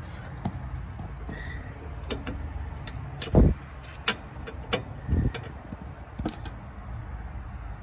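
Scattered light metallic clicks and taps as a cotter pin is twisted over on a ball-joint nut, with two heavier thumps about three and a half and five seconds in.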